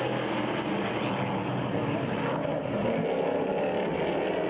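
Late model stock car V8 engines running steadily on the track, a constant drone with no marked revving or fading.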